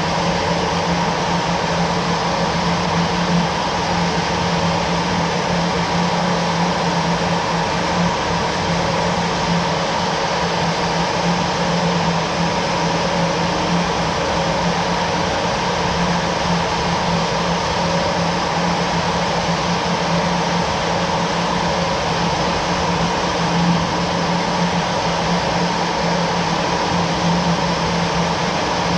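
Jet aircraft engine running at a steady setting: an unchanging rush of noise with a constant low hum and a thin steady whine.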